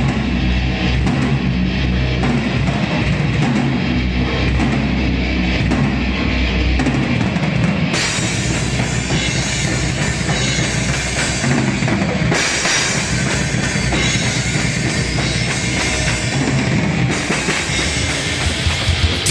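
Heavy metal drumming on a full drum kit, with bass drum and cymbals, in a live-sounding rehearsal of a song's intro. The pattern shifts several times, with the cymbals brightening at about eight seconds and again at about twelve and seventeen seconds.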